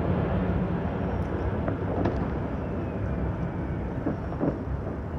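Steady low rumble of outdoor city noise, with a few faint distant pops.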